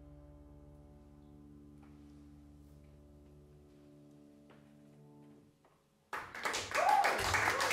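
The last sustained notes of a jazz piece, with a bowed double bass, ring on and slowly fade. After a brief silence about six seconds in, the audience suddenly breaks into applause, with a voice calling out.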